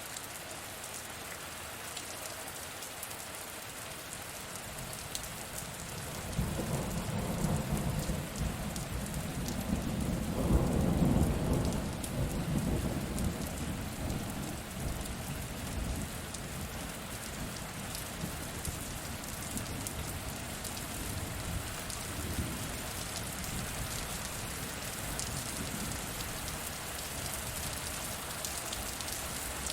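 Steady rain falling, with a roll of thunder that rumbles in about six seconds in, swells to its loudest around ten to twelve seconds, then slowly fades under the rain.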